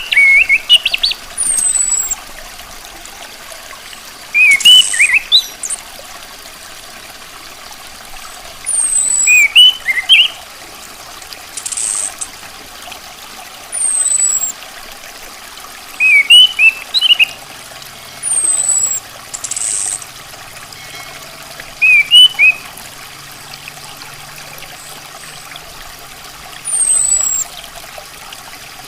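Orange-headed thrush calling: short clusters of quick chirps repeating about every five seconds, with thin high down-slurred notes between them. The calls sound over a steady hiss.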